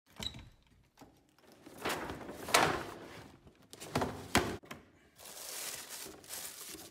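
Door lock clicking and the door being opened, then a few loud knocks as a cardboard shoebox is handled. From about five seconds in, tissue paper rustles as it is pulled back inside the box.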